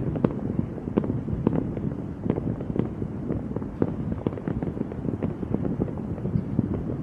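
Fireworks going off in quick succession: an irregular run of bangs and pops, several a second, over a continuous rumble.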